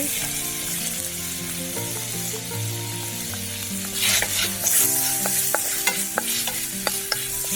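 Ginger and garlic frying in hot sunflower oil, sizzling steadily and louder from about four seconds in, while a spatula stirs and taps against the pan in a run of sharp clicks.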